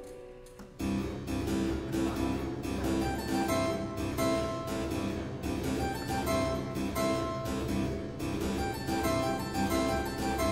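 Double-manual harpsichord playing a boogie-woogie solo. A chord dies away, then about a second in both hands come in with fast, busy, rhythmically driving plucked notes.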